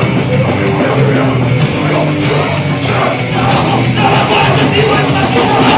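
Loud heavy hardcore-punk / metal band playing: distorted electric guitars and drums.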